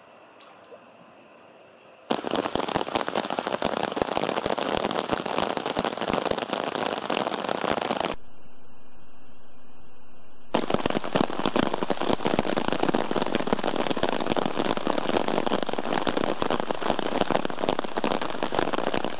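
Heavy rain pattering on a river's surface, a dense, loud crackle that starts suddenly about two seconds in. It breaks off for about two seconds near the middle, where a steady electronic tone takes its place.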